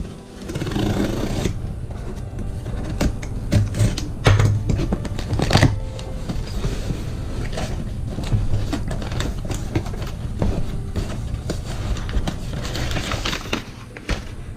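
Packaging of a GoPro camera box being opened by hand: irregular clicks, scrapes and rustling of cardboard and plastic.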